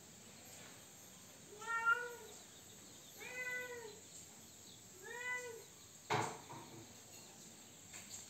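Three meows, each rising then falling in pitch, spaced about a second and a half apart, likely from a domestic cat; a single sharp click follows about six seconds in.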